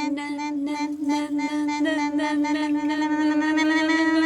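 A single voice holds one steady note in the trembling nasal trill of Dong folk singing, with the tongue working against the palate. The trill pulses slowly, about three times a second, then smooths into an even held tone about halfway through.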